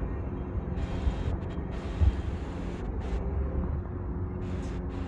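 City street ambience: a steady low rumble of traffic, with a brief louder knock about two seconds in.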